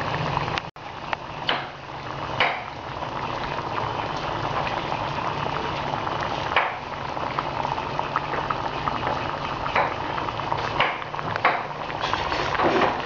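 Water boiling hard in a pot of spinach: steady bubbling with a few louder pops here and there. The sound cuts out for an instant just under a second in.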